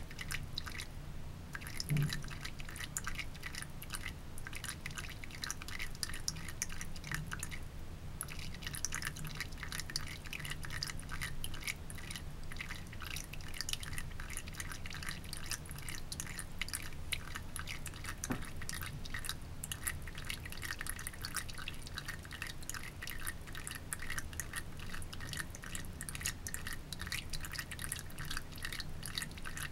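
A thin stream of water trickling from a bathroom sink faucet into the basin, a steady fine patter of drops, with a low hum underneath.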